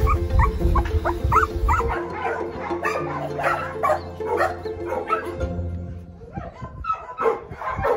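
Dog whimpering in a quick run of short, high whines, about four a second, for the first two seconds, then a few scattered barks, over background music.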